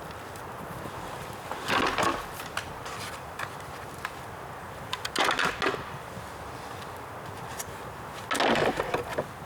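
Dry bamboo fire crackling with scattered sharp pops, and three short loud crunching rustles of dry material, each about half a second, roughly three seconds apart.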